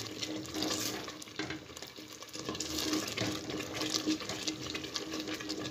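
A long-handled spoon stirring and scraping thick, nearly finished khoya around a metal pot over the flame, with a dense fine crackling from the cooking milk solids. It is milk cooked down almost to khoya in its last minutes of stirring.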